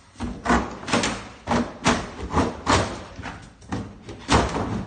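Repeated metal-on-metal hammer blows while a scrap refrigerator is being broken apart, sharp knocks at an uneven pace of about two a second.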